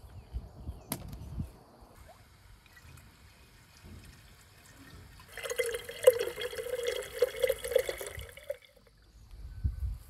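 Water from a garden hose pouring into a glazed clay jug for about three seconds, starting about five seconds in. Before that come a few low thumps and a sharp click about a second in.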